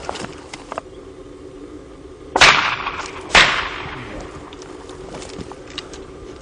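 Two shotgun shots about a second apart, each trailing off in an echo, fired at wood pigeons flying over.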